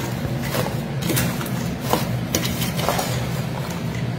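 Steel ladle scraping and clinking against a stainless-steel bowl while fried chicken pieces are stirred together with chilli powder and salt for pickle. The clinks come irregularly, a handful of them, over a steady low hum.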